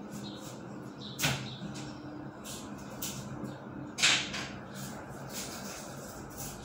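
Kitchen food-preparation clatter: utensils and hands knocking against a ceramic baking dish, a scatter of short clicks with two louder knocks about a second in and about four seconds in, over a steady low hum.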